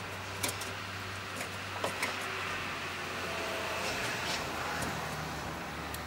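Scattered sharp clicks and light knocks of hands handling plastic headlight bulb and housing parts, over a steady low hum.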